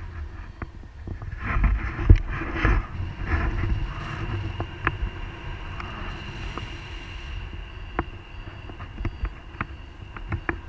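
Wind buffeting a pole-mounted action camera's microphone in flight under a tandem paraglider, a constant low rumble with scattered sharp clicks and knocks from the pole and mount.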